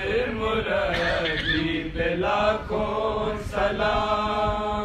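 A man's voice chanting a devotional qasida unaccompanied, drawing out long wavering notes.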